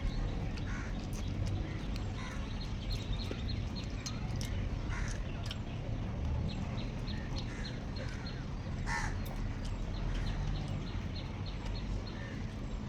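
Crows cawing now and then over a steady low rumble, with small clicks and smacks of people eating.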